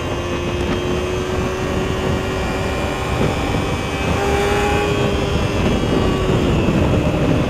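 Kawasaki Ninja 300's parallel-twin engine running steadily under way, with a dense rushing noise beneath it. The engine note rises a little about four seconds in and eases near the end.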